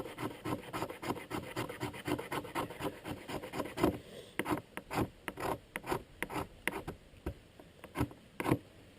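Knife spine scraping a resin-rich fatwood stick in quick repeated rasping strokes, shaving off fine fatwood dust as fire tinder. The strokes come fast and close in the first half, then slower and sharper after about four seconds.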